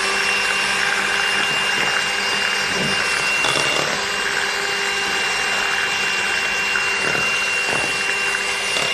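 Electric hand mixer running at one steady speed, a constant motor whine, beating cake batter.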